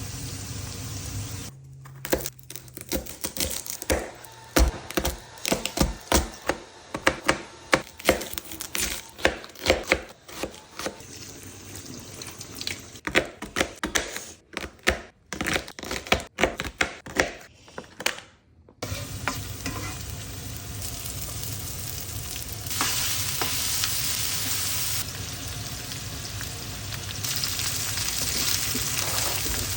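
Cooking in a home kitchen: an irregular run of sharp clacks and knocks for the first two-thirds, then food frying in a pan with a steady sizzle that gets louder twice.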